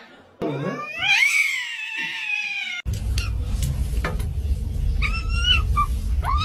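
A distressed cat gives one long, drawn-out yowl that rises and then falls, cut off abruptly. A low rumble follows, and over it a kitten gives two short meows near the end.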